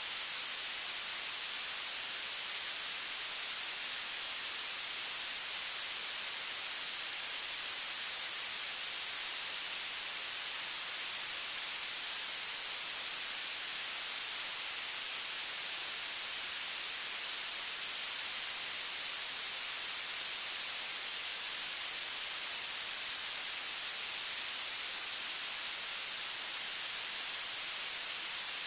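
Steady, unbroken static hiss, strongest in the high treble, with no other sound standing out.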